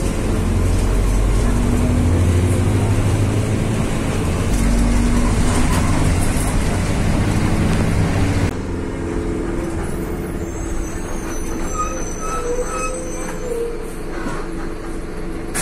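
City bus engine heard from inside the bus, a loud rumble with a shifting whine. About eight seconds in it drops suddenly to a quieter, lower rumble, and three short beeps sound a few seconds later.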